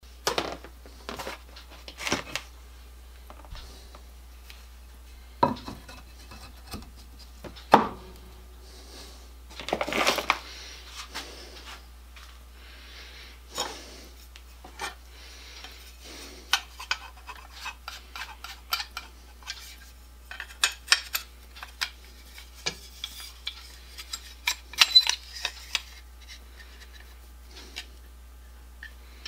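Workbench handling: a plastic tub lid taken off, a wet water stone lifted from its soaking tub and set onto a wooden stand, then a metal honing guide and plane blade picked up, heard as a series of separate knocks and clatters with a denser burst of clattering near the end.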